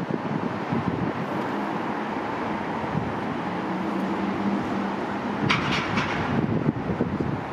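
Wind on the microphone over a steady low rumble of distant airport and road traffic. A quick run of sharp clanks comes about five and a half seconds in.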